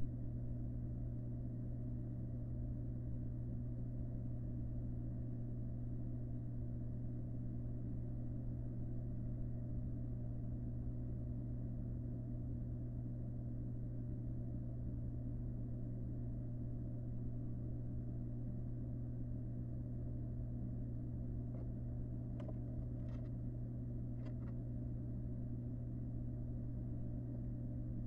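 Steady low electrical hum picked up by the nest-box camera's microphone, unchanging throughout, with a few faint clicks about three quarters of the way through.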